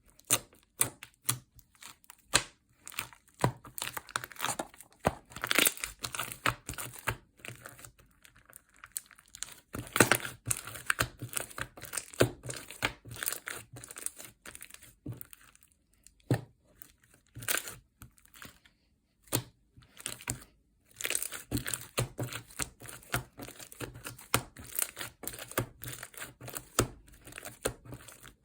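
Slime being squeezed, stretched and pressed by hand, giving a run of irregular crinkly crackles, pops and tearing sounds, with a short pause near the middle.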